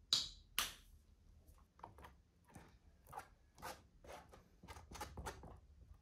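Metal palette knife scraping and spreading thick structure paste over a canvas, in a series of short strokes; the two near the start are the loudest.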